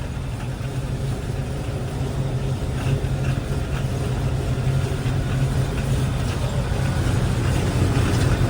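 Combine harvester running steadily while harvesting wheat: a continuous low engine drone that grows a little louder toward the end.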